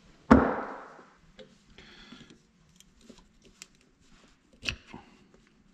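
A single hard knock of a metal part or tool set down on a workbench, ringing briefly, then scattered light clicks and taps of small steel hydraulic-valve parts being handled.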